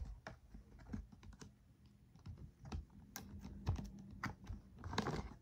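Scattered light clicks and taps of toy packaging being handled and opened.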